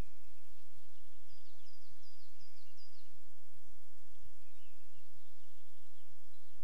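A small songbird singing a quick run of about five short, high, falling notes, then a few fainter notes, over a steady low rumbling background noise.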